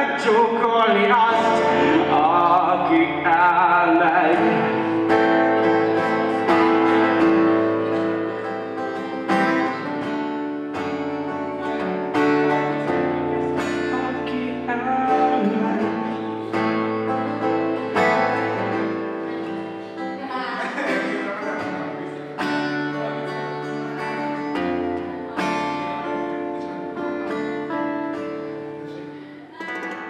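A man singing with an acoustic guitar: held, wavering vocal notes over plucked and strummed chords. The music gradually fades out near the end.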